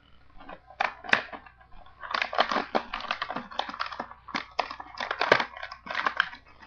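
Toy packaging being torn and pulled open by hand: crinkling and crackling with many sharp clicks and snaps, sparse at first and denser from about two seconds in.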